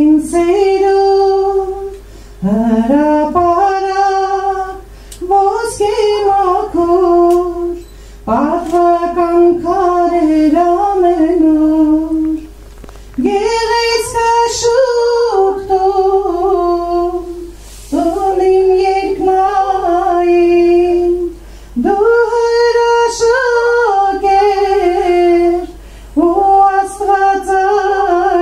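A woman singing a religious song solo and unaccompanied into a handheld microphone, in sung phrases of a few seconds each with short breaths between them.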